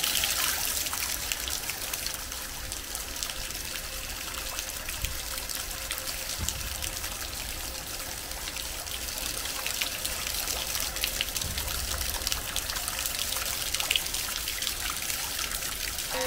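Heavy rain pouring down and splashing into standing water on the ground: a steady hiss with scattered drop ticks.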